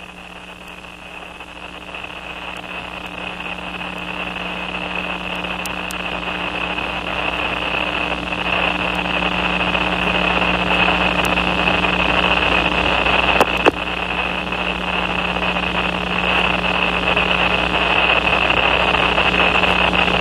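Steady hiss with a low hum, slowly growing louder, and one brief click about two thirds of the way in.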